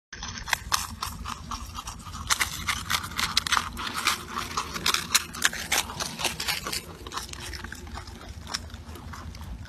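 Marmots chewing a carrot: rapid, irregular crunching, with a steady low rumble underneath.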